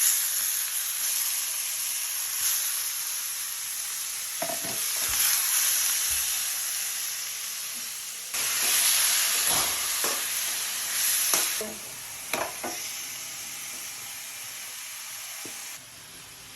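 Chicken sizzling in hot oil in a pan with onion, garlic and ginger, with a few knocks from a utensil stirring it. The sizzle grows louder about eight seconds in and drops back after about twelve seconds.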